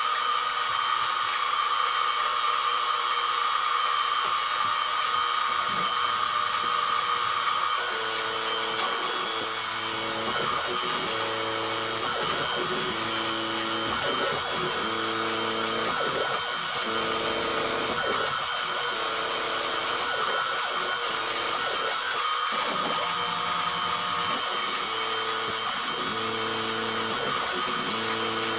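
CNC-converted mini mill running a drilling program: the spindle runs steadily while the axis stepper motors whine in short repeated moves from about eight seconds in, as a quarter-inch TiN-coated high-speed-steel bit drills holes in a wooden board.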